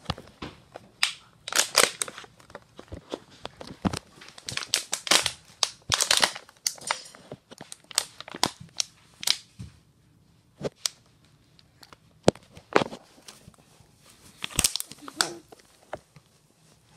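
Thin plastic water bottle crinkling and crackling as a baby grips and mouths it, in an irregular run of sharp crackles and clicks that thins out about ten seconds in before picking up again.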